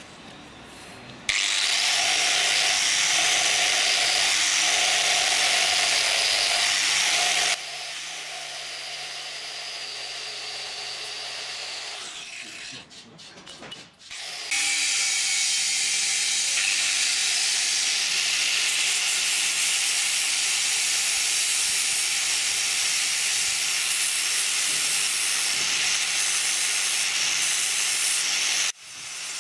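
Angle grinder with an abrasive disc grinding a steel air-conditioning compressor clutch pulley. It starts about a second in, eases to a lighter grind after several seconds, nearly stops around the middle, then grinds at full load again until it cuts off just before the end.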